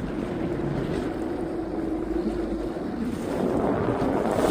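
Boat's engine running steadily out on open water, with wind buffeting the microphone; the wind and water noise grows louder about three seconds in.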